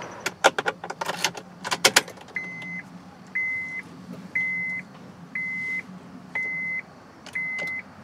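A few clicks and knocks, then the 2008 Honda Odyssey's turn-signal indicator sounding at its normal rate, about once a second: each flash is a click, a short beep and a click. The steady rate, no longer the rapid hyper-flash, shows the circuit working again now that the lost ground connection is repaired.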